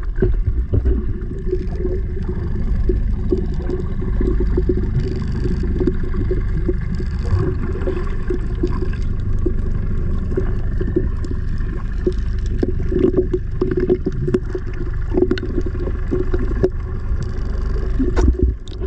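Underwater sound picked up by a submerged camera: a steady muffled rumble of moving water with bubbling and many small clicks and pops.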